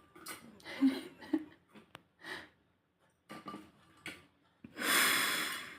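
Breathing sounds close to the microphone, a few short breathy bits followed by one long, loud breathy exhale about five seconds in.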